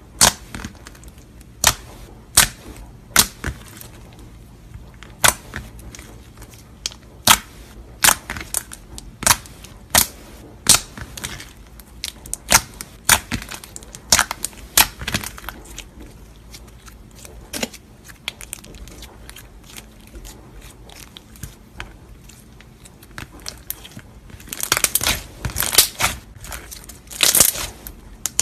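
Slime being squeezed and stretched by hand, giving irregular sharp popping clicks as air pockets burst, with denser crackling bursts near the end.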